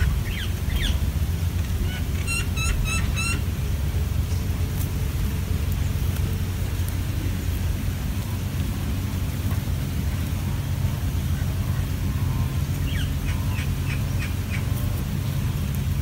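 Bulbuls chirping at the nest: a quick run of short high chirps at the start, a row of about five sharp repeated notes around two to three seconds in, and another brief run of chirps near the end. A steady low rumble runs underneath.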